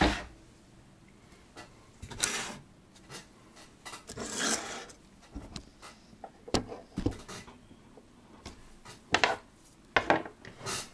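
Scattered workshop handling noises: short knocks, clicks and rubbing as tools and equipment are shifted about on a wooden workbench, with a couple of longer rustles early on and sharper knocks in the second half.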